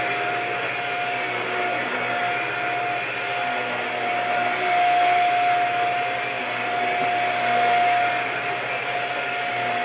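Cordless stick vacuum running while it is pushed back and forth over a rug: a steady motor hum and airflow with a strong high whine, growing a little louder a few times with the strokes.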